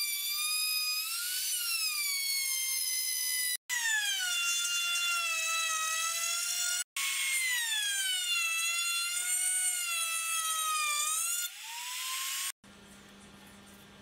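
Compact trim router running and routing a slot in a pine block. Its high motor whine sags in pitch as the bit loads up in the wood and rises again as it eases off, in three stretches broken by two sudden gaps. The whine stops abruptly about a second and a half before the end, leaving only a faint low hum.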